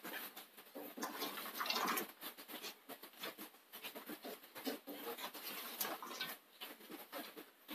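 Fingers spreading damp, parboiled tapioca slices over a terry-cloth towel: faint, irregular scratching and patting of the slices and fabric.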